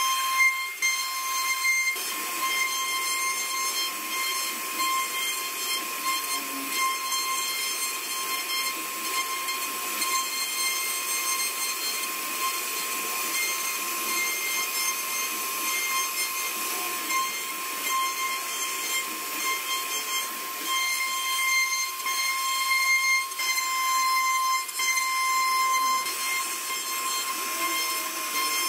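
CNC router spindle running with a steady high whine while its bit cuts into hardwood, over a continuous hiss of cutting.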